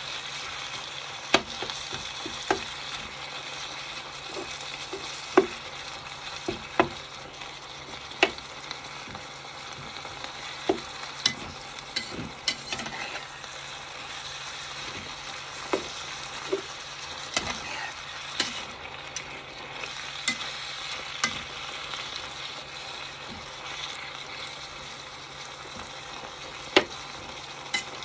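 Ground meat and chopped vegetables sizzling as they fry in a pan, stirred and turned with a spatula and chopsticks, with irregular sharp taps of the utensils against the pan.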